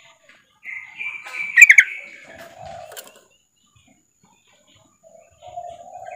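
Female yellow-vented bulbul (trucukan) calling, as a lure call for males: a buzzy, chattering phrase about a second in with a few loud, sharp notes, then a pause, and the call starting again near the end.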